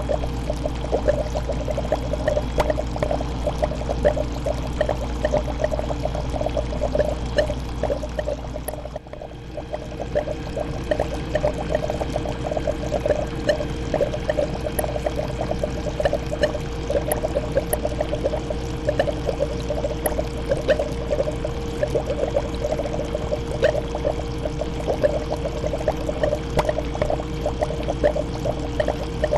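Aquarium water trickling and bubbling steadily, a dense stream of small splashes and bubble pops over a steady low hum. It dips briefly about nine seconds in, then carries on as before.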